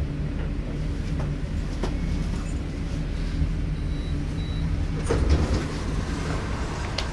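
Interior running noise of an ES2G 'Lastochka' (Siemens Desiro RUS) electric multiple unit, heard from inside the passenger car: a steady low hum of the traction equipment and running gear, with occasional light clicks from the wheels on the track.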